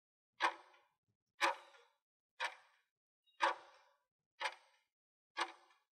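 Countdown timer sound effect ticking once a second, six sharp ticks each with a brief fading tail, counting down the seconds left to answer a quiz question.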